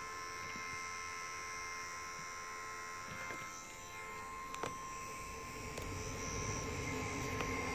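YIHUA 8858-I hot air gun running and heating up, its fan blowing with a steady high whine over an airy hiss. A couple of faint handling clicks around the middle.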